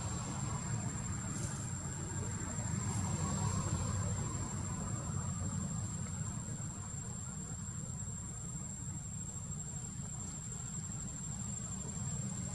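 Steady low rumble with a continuous high-pitched insect drone held on one note throughout.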